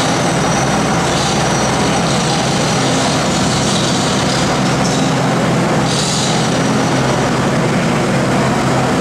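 Ford tractor engine running steadily under load as the tractor pulls away with the sled, with a brief high hiss about six seconds in.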